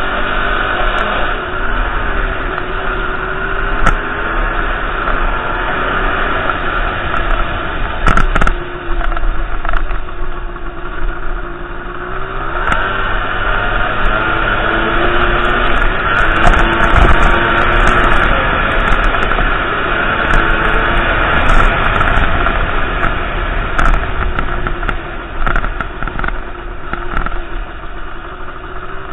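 Dirt bike engine running as the bike is ridden over rough ground, its pitch rising and falling with the throttle, heard through a helmet-mounted camera's microphone. A few sharp knocks come through, around 4 and 8 seconds in.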